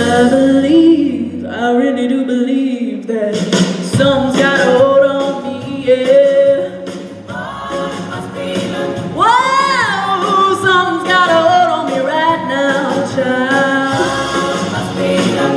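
A sorority group singing a song together, several voices at once in harmony.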